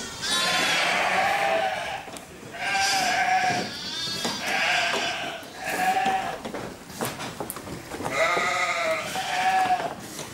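Sheep bleating over and over, about six or seven separate calls, each under a second long and following one another every second or so.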